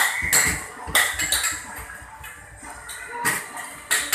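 Small basketballs knocking against the backboard, rim and ball-return ramp of an arcade basketball machine as shots are thrown. There are two quick knocks at the start, two more about a second in, then a pause before further knocks near the end, over background music.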